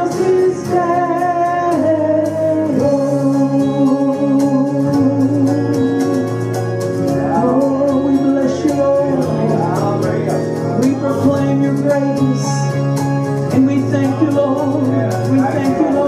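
Gospel worship song: women singing long, held notes into microphones over steady instrumental accompaniment.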